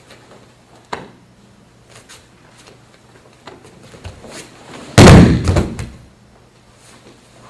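A person thrown in a judo demonstration hits the judo mat with one loud, heavy thud about five seconds in, the noise of the fall dying away within about a second.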